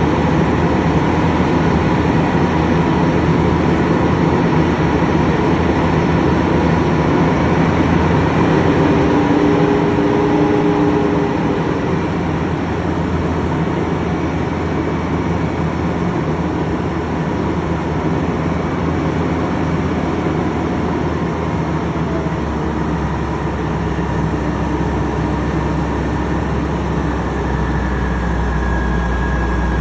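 A heavy engine running steadily with a low, even drone, easing slightly in level about twelve seconds in.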